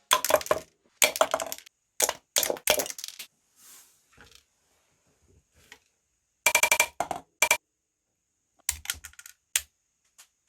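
A homemade wooden clothespin gun clicking and clattering in five quick bursts of sharp snaps, with short pauses between them.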